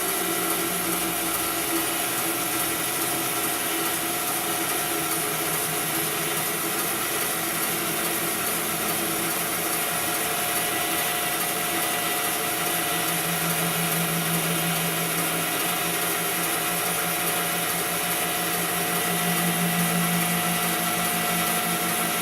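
Grizzly 17-inch bandsaw running with a 3/4-inch carbide-tipped Resaw King blade, a steady motor and blade hum. The blade is slack and fluttering while its tension is adjusted with the hand wheel under power. The low part of the hum swells a couple of times in the second half.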